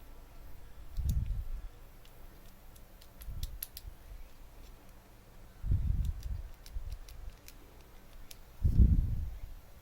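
Shimano BL-M9020 hydraulic brake lever being worked by hand: four dull knocks about two to three seconds apart, the last the loudest, with light sharp clicks between them.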